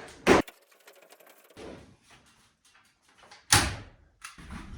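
Two sharp, loud knocks about three seconds apart, with lighter clicks and clatter between them.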